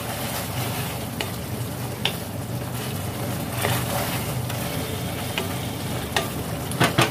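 A wooden spatula stirring okra in a thick mustard and poppy-seed gravy in a stainless steel kadai, scraping and knocking against the pan every second or so. Under it runs a steady hiss from the cooking gravy.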